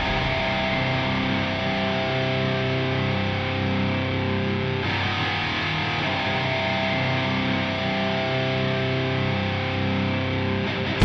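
Music: sustained, distorted electric-guitar chords ringing without drums, the chord changing about five seconds in.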